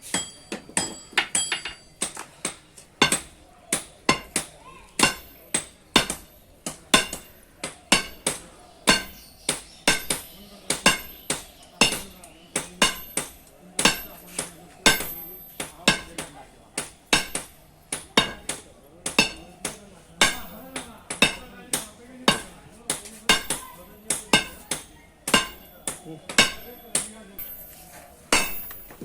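Hand hammer striking metal in a steady forging rhythm, about two blows a second, each blow a sharp clang with a brief metallic ring.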